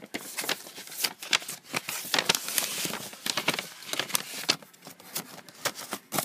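Packing paper and cardboard rustling and crinkling as a hand rummages through a packed mailing box, with many short sharp crackles and clicks.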